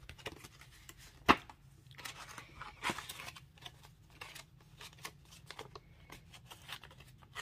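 Paper banknotes and a clear plastic cash-envelope sleeve rustling and crinkling as a stack of bills is handled and slid into the pocket, with one sharp click about a second in.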